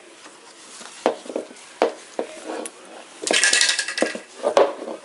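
Hard-soled child's shoes knocking on a wooden floor, a few separate taps, with a short clattering rattle a little over three seconds in.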